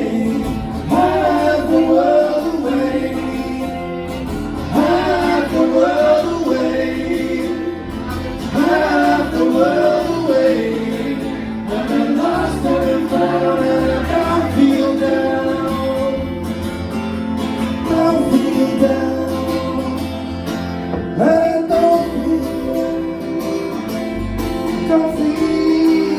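A singer performing a song live over instrumental accompaniment, the voice gliding through a continuous melody.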